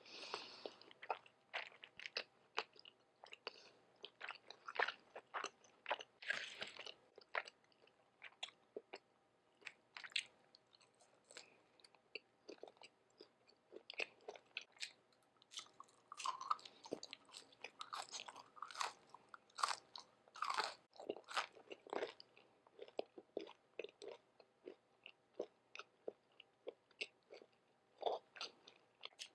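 Close-miked chewing and biting of breakfast food: irregular crunches and crackles with wet mouth smacks. The crisp crunches are typical of bacon or a hash brown.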